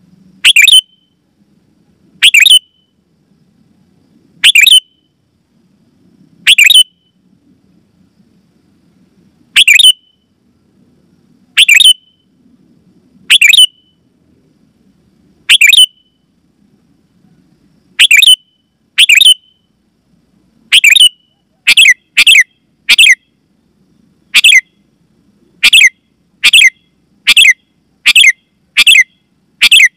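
Sooty-headed bulbul (kutilang) calling: short, loud, sharp notes repeated about every two seconds, coming faster, one or two a second, in the last third.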